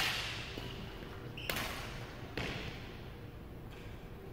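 Badminton racket hits on a shuttlecock, three sharp strikes about a second apart that echo around a gym hall, with a brief squeak just before the second.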